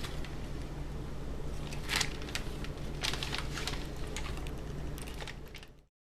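Kitchen handling noises over a steady low hum: a few scrapes and clicks about two and three seconds in. The sound then cuts off to dead silence near the end.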